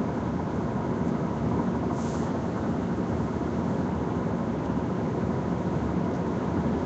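Steady road and engine noise inside a moving car's cabin at highway speed.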